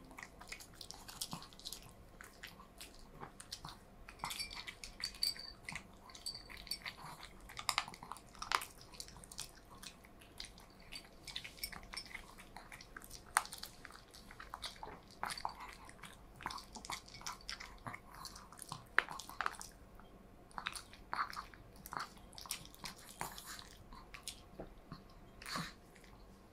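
A chihuahua chewing and crunching on food: irregular crisp crunches, sometimes in quick clusters, with short pauses between them.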